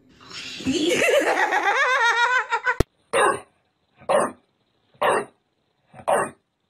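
A person laughing heartily for a couple of seconds, cut off sharply. Then an English bulldog barks at a framed picture of a bulldog, four short barks about a second apart.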